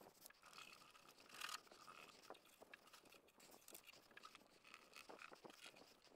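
Near silence, with faint scattered scrapes and small ticks, the sound of a rag and cleaner being worked over a car's quarter panel.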